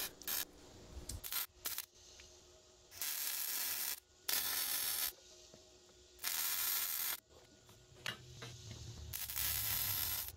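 Electric arc welding of steel: four short tack welds, each about a second of steady hiss that starts and stops abruptly, with small clicks between them.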